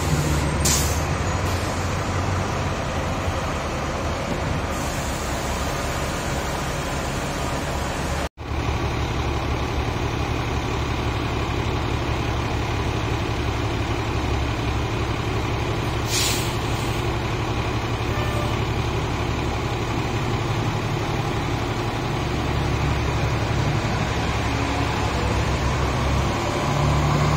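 Orion VII NG diesel city buses running with a steady low engine drone. Short sharp air hisses from the air brakes come about a second in and again about sixteen seconds in.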